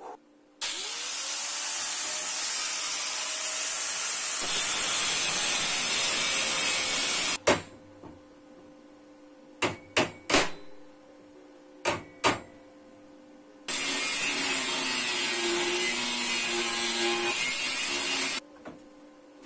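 Power tool grinding metal: it spins up with a rising whine and grinds for about seven seconds, stops, then a few sharp metallic knocks, then a second spell of grinding for about five seconds.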